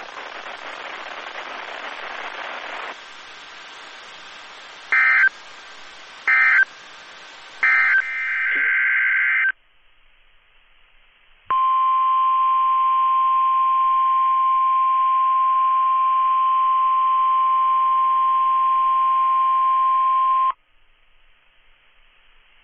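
Weather radio broadcast: a few seconds of receiver hiss, then three short bursts of warbling SAME digital alert data. After a pause comes the NOAA 1050 Hz Warning Alarm Tone, one steady high tone held for about nine seconds that then cuts off. Together these are the weekly test of the alert signal.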